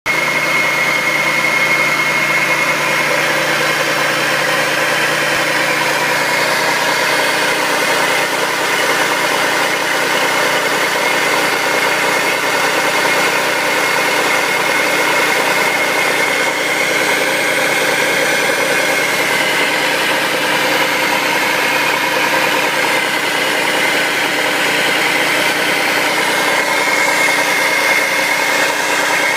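2004 Audi allroad 2.7T's twin-turbo V6 idling after a cold start, with a loud steady noise over it that carries a high whine. It is the cold-start noise that the owner says appears only on cold mornings and goes away once the engine warms.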